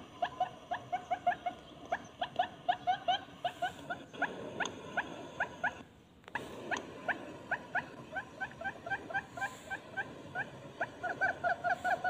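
Barred buttonquail calls from a lure recording: a run of short, rising chirped notes, about three to four a second and quicker in spells, with a brief break about six seconds in.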